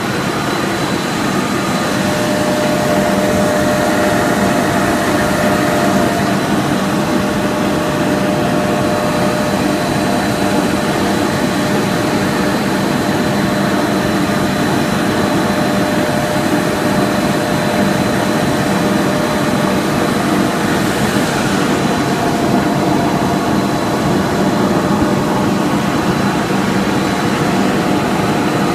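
Snack pellet extrusion line machinery running: a loud, steady mechanical drone with a thin, high, constant whine over it.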